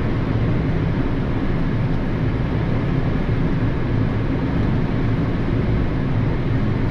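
Steady rush and low drone of airflow and engine noise inside a Boeing 787-9 flight deck on short final approach.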